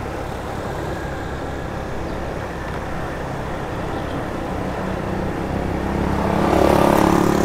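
Road traffic rumbling steadily. About six seconds in, a vehicle engine comes close and grows louder.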